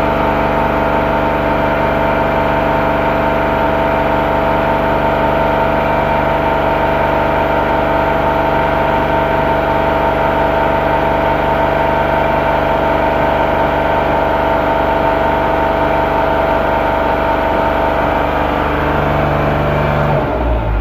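An engine or motor running steadily, with a constant hum of several steady tones; the tones shift shortly before the end.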